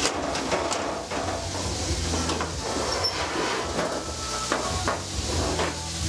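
Antelope meat searing in chicken fat in a cast-iron skillet: a steady sizzle with frequent small crackles and pops from the hot fat.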